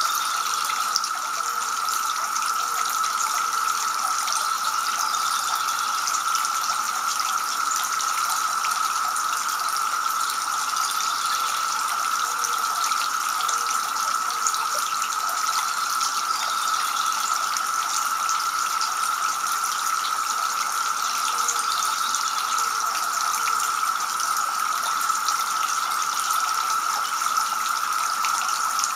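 Water from a two-tier garden fountain trickling and splashing steadily from the upper bowl into the lower basin.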